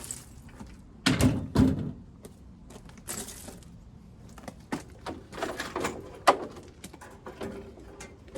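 Irregular knocks, thunks and clatter of hand work on a workpiece, with two loud thunks about a second in.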